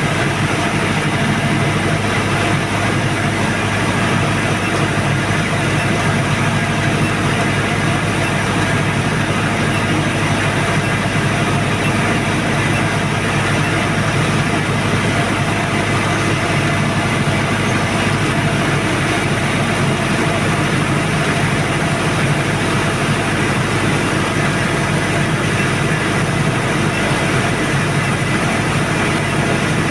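Diesel generator set with a four-cylinder turbocharged 4108ZD engine running at a steady speed, an even, unchanging drone.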